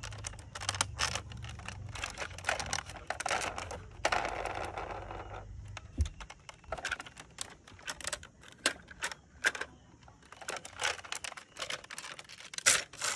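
Plastic toy fire truck being handled: a quick, irregular run of clicks and taps as its plastic ladder, hose and body parts are moved and knocked together, with a short rustling scrape about four seconds in. A low rumble underneath stops about six seconds in.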